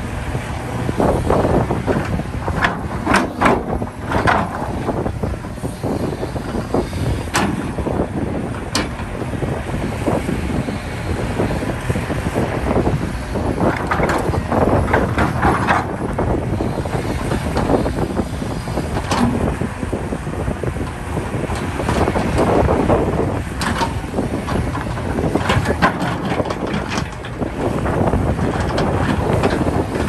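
Hitachi 670LC hydraulic excavator working while loading trucks: the diesel engine runs steadily under load, with scattered sharp clanks, a few near the start and a few more about three-quarters of the way through.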